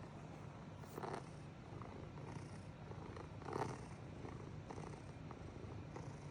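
Domestic cat purring steadily, with two brief louder sounds, one about a second in and one past the halfway point.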